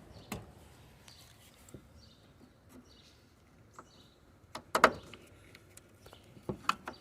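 Scattered light clicks and knocks of hands working loose the 12-volt wire connections on an RV refrigerator, with two louder clusters of knocks around five and six and a half seconds in. Faint bird chirps are in the background.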